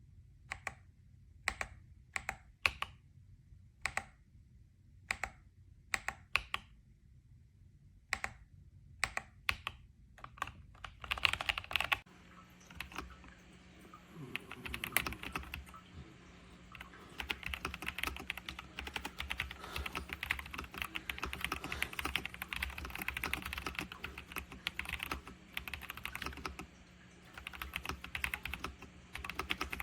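Keys of an RK Royal Kludge S98 mechanical keyboard being pressed: for about the first ten seconds, separate keystrokes one or two at a time with short gaps between them, then fast continuous typing.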